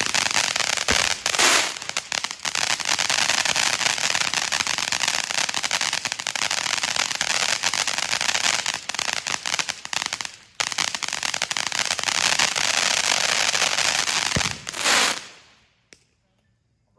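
Black Cat 100 Foot Fountain firework spraying sparks: a loud, steady hiss thick with rapid crackling. It cuts out for a moment about ten seconds in, then dies away about fifteen seconds in.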